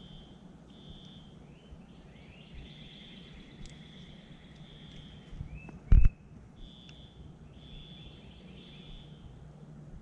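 High-pitched trilling animal calls repeat over and over outdoors, each lasting from about half a second to a second and a half. A single brief, loud low thump comes about six seconds in.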